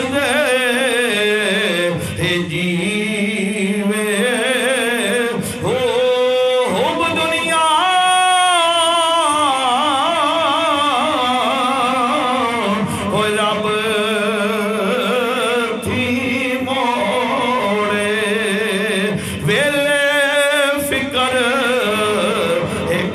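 A man's voice singing or chanting melodically in long, wavering, drawn-out phrases with short breaks between them.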